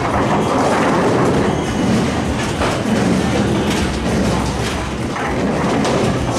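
Bowling alley din: a steady rolling rumble of balls on the lanes and the Brunswick GS-NXT pinsetter cycling, with a few knocks and clatters of pins.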